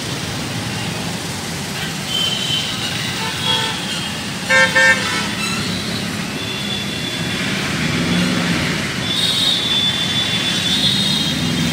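Street traffic noise with vehicle horns honking: a loud double toot about four and a half seconds in, and thinner, higher horn notes here and there.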